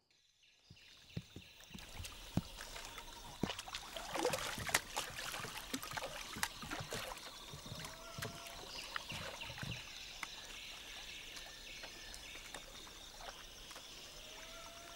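Paddles splashing and dipping as a small wooden canoe is paddled across still water, with many small irregular knocks and splashes over a faint steady hiss; it fades in about a second in. A couple of short bird-like calls come through in the second half.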